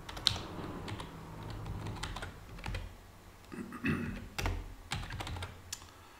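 Typing on a computer keyboard: irregular keystrokes, some in quick clusters, over a faint steady low hum.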